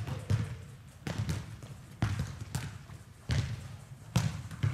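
Soccer balls being kicked on indoor turf: about eight sharp thuds at uneven intervals, each echoing in the large hall.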